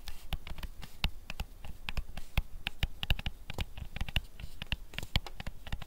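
Stylus tapping and scratching on a tablet screen during handwriting: an irregular run of small clicks, several a second.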